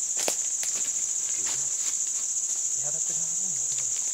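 Steady high-pitched drone of a forest insect chorus, unbroken throughout. A single sharp click sounds just after the start, and faint distant voices come in briefly near the end.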